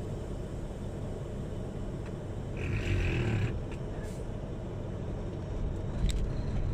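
Truck engine idling with a steady low rumble, heard from inside the cab. A brief hiss comes about three seconds in, and a sharp click near the end.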